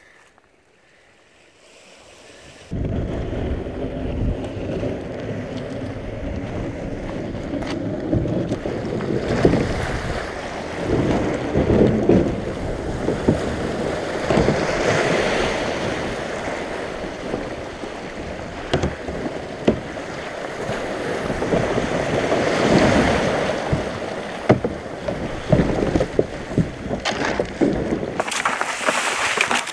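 Sea water sloshing and surging around a plastic sit-on-top kayak as it is paddled between rocks, with paddle splashes and wind rumbling on the microphone. It starts abruptly about three seconds in after a faint start, and swells into louder hissing splashes several times.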